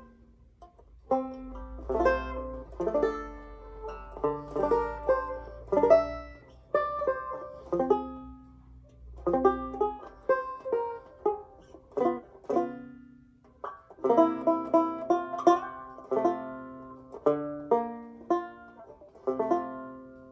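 Banjo played solo: plucked chords and melody notes that ring and decay, in phrases with short pauses between them.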